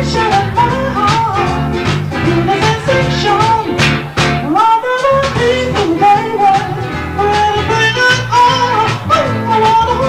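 Live band recording of a pop-soul song: a man singing a melody in high falsetto over band accompaniment with bass and drums. The bass drops out briefly about halfway through.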